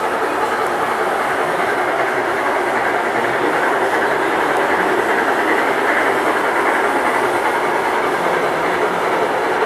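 O-scale model trains running on the layout: a steady rumble and clatter of metal wheels on the track, without a break.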